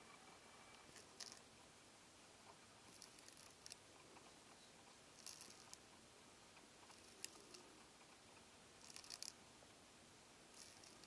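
Euhadra quaesita land snail rasping a Schizophragma hydrangeoides leaf with its radula: faint, crisp scraping strokes in short clusters, one every second and a half to two seconds.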